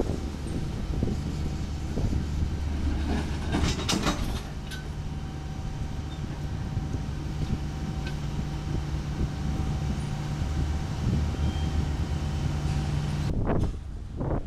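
Freight cars rolling slowly past on the rails with a steady low rumble, and a short cluster of metallic clanks a few seconds in.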